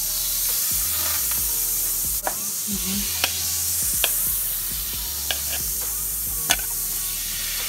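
Oil and butter sizzling steadily in a hot stainless steel skillet, very hot and close to burning, with a few sharp clinks from the steel mixing bowl as it is handled.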